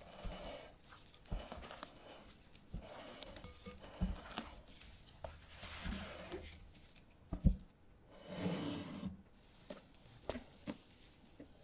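Silicone spatula folding egg-yolk batter into meringue in a glass bowl: irregular soft, wet squishing and scraping strokes, with one sharp knock about two thirds of the way through. Near the end comes about a second of crinkling plastic film.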